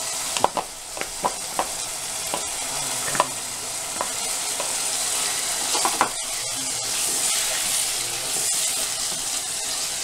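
Minced meat frying in a nonstick pan, a steady sizzle that grows louder in the second half as yogurt is stirred in. A wooden spatula taps sharply on the pan several times in the first few seconds.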